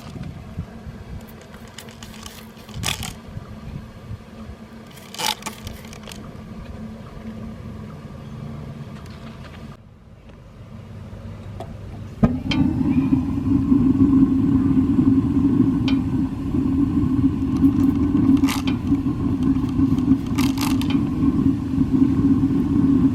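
Suburban SW6P RV propane water heater being lit: a low rumble with a few sharp clicks, then about halfway through the main burner lights with a sudden whoosh and settles into a steady, louder burner roar.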